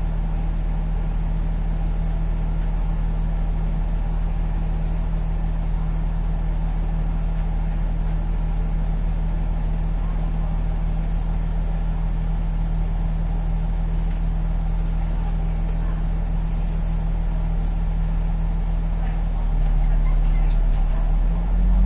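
Bus engine idling steadily, heard from inside the cabin, then getting louder and rising in pitch near the end as the bus starts to pull away.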